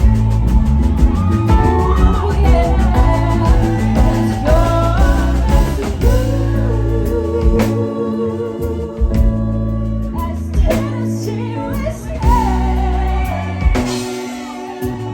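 Live band playing a slow soul ballad: a lead voice sings a sliding, ornamented melody over bass, drum kit and electric guitar. The bass and drums drop out briefly about nine seconds in and again near the end.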